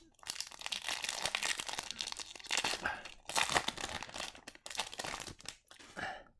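Plastic-foil wrapper of a hockey trading card pack crinkling as it is handled and torn open. It comes in two stretches with a short break about three seconds in.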